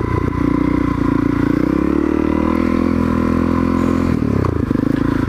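Honda CRF250L's single-cylinder four-stroke engine running as the dirt bike is ridden through mud, its note rising and falling with the throttle.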